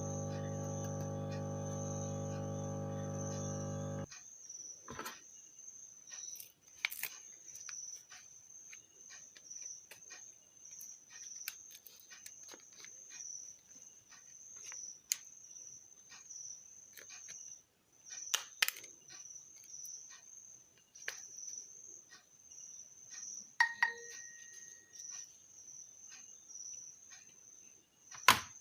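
Light clicks and ticks of tools working at a phone's glued back cover, over a steady high pulsing chirp. A steady hum fills the first few seconds and cuts off suddenly.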